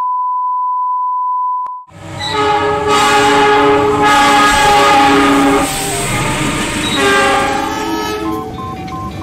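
A steady 1 kHz test-tone beep that cuts off after about two seconds. It is followed by train horns: several long blasts of a multi-note locomotive air horn, changing pitch from blast to blast, over the rumble of a passing train.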